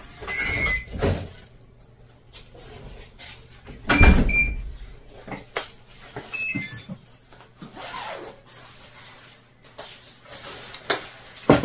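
Digital door lock chiming as a door opens, then a heavy thud of the door shutting about four seconds in with two short beeps, and a quick falling run of electronic tones a couple of seconds later. Faint clatter of a spoon and a plastic bag runs between them.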